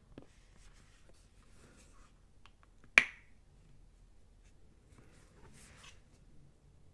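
A plastic flip-top cap on a lotion bottle snapping open with a single sharp click about three seconds in, amid faint rustling of hands on the bottle.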